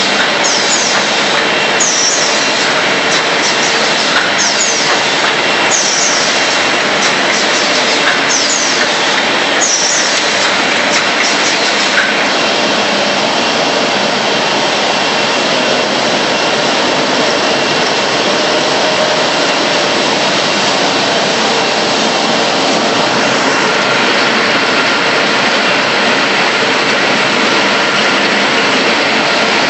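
Automatic A4 paper roll-to-sheet cutting and ream-wrapping machine running: a loud, steady machine noise. For about the first twelve seconds a short high-pitched sound repeats about every two seconds.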